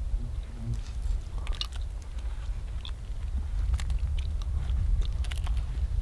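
Biting and chewing on the crisp skin of a spruce-smoked, maple-glazed lake trout, with a few sharp crunches now and then.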